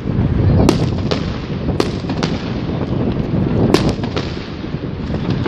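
Fireworks going off: several sharp bangs over a continuous low rumble and crackle of bursting shells.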